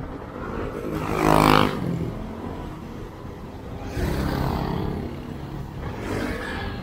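Road noise from a moving scooter in city traffic: a steady low rumble of wind and engine. Other vehicles pass close by, the loudest about a second and a half in, with more passing at about four seconds and near the end.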